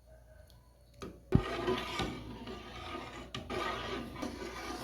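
A spoon scraping around a pot of cooking corn canjica as it is stirred continuously to keep it from going lumpy. About a second in there is a sharp knock, after which the scraping runs steadily.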